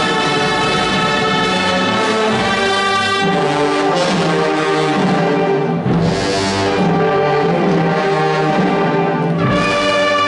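Wind band of clarinets, flutes and brass playing a Holy Week Passion march in sustained chords, with cymbal crashes about six seconds in and again near the end.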